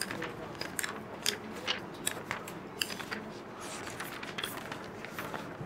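A string of irregular, light clicks and ticks over a faint steady hiss.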